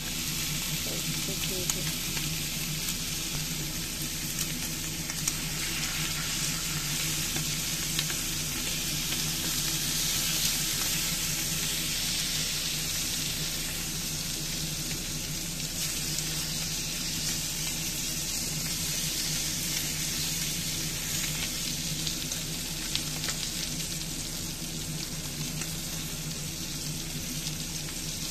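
Thick bone-in Angus beef steak frying in butter in a cast iron skillet. The sizzle is steady and full of small crackles and pops. A low steady hum runs underneath.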